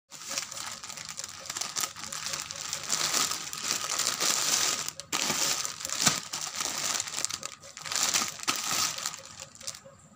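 Plastic packaging crinkling and rustling as hands pull a dress in a clear plastic bag out of a plastic courier mailer, with a brief pause about halfway through.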